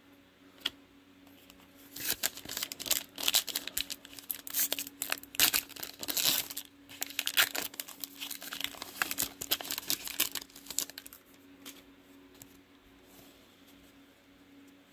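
Wrapper of a Prizm football trading-card pack being torn open and crinkled: a dense run of crackling rips that starts about two seconds in and dies down after about nine seconds.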